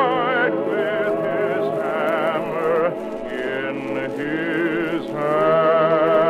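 Music: a choir singing long held notes with vibrato over instrumental accompaniment. It dips about halfway through and swells into a louder sustained chord near the end.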